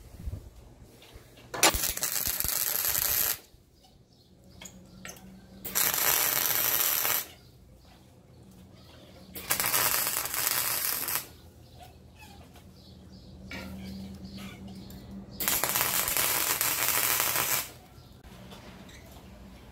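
Electric arc welding of a steel strip onto a steel compressor tank: four short welds, each a steady crackle of about two seconds that starts and stops abruptly, with a faint low hum in the pauses between them.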